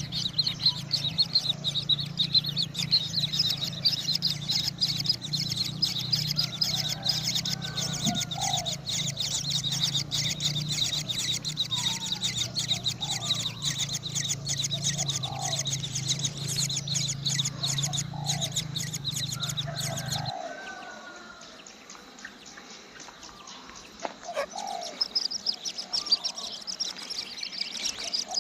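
Short rising bird chirps repeated every second or two over a dense, fast, high buzzing trill and a low steady hum. The buzz and hum stop abruptly about two-thirds through, leaving the chirps more exposed, and the buzz comes back near the end.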